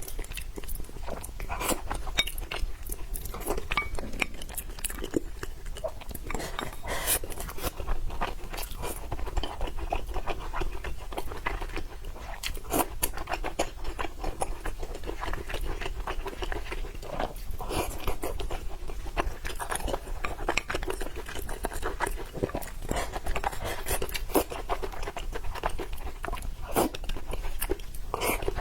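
A person eating: chewing and crunching food, with frequent irregular sharp clicks of biting and mouth sounds.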